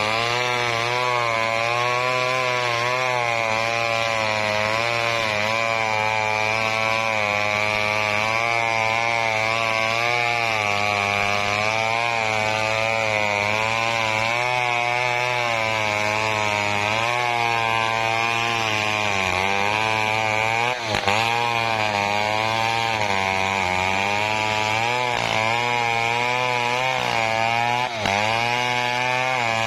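Chainsaw running steadily under load while sawing coconut wood, its engine pitch wavering up and down as the cut bites and frees. It dips briefly twice in the last third.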